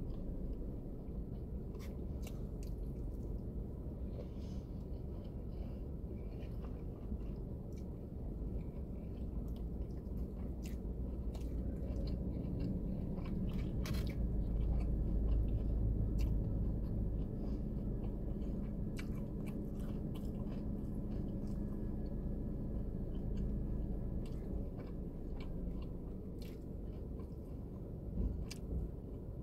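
A person chewing and biting takeout chicken and vegetables, with scattered light clicks, over a steady low rumble.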